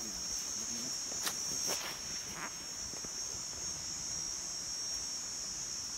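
Insects droning steadily at a high pitch in the forest, with a few brief scratchy clicks about one to two and a half seconds in.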